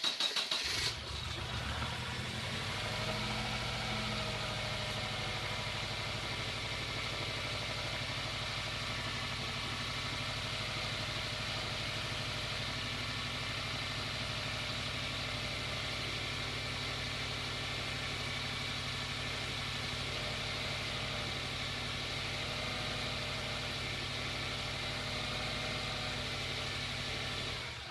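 Subaru WRX turbocharged EJ205 flat-four catches within about a second of cranking, then idles steadily on its newly fitted fuel filter, and stops near the end.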